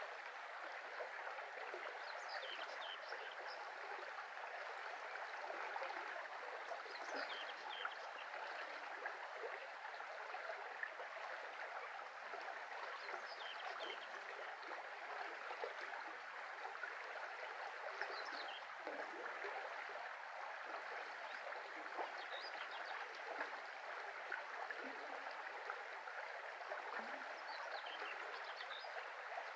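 Shallow brook babbling steadily over its bed. Brief high bird chirps come every few seconds.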